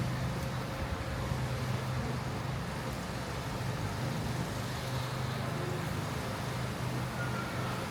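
City street traffic: a motor vehicle's engine running with a steady low hum over the general noise of the street.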